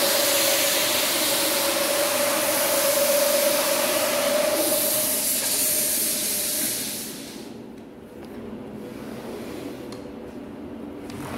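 Rotary carpet-scrubbing machine running with a steady whine under a loud hiss, cutting out about seven seconds in.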